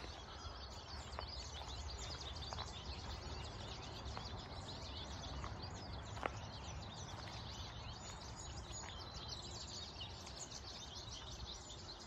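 Many small birds chirping and twittering at once in quick, high notes, which the filmer takes for yellow finches (American goldfinches). A low steady background rumble runs underneath, with a sharp click about six seconds in.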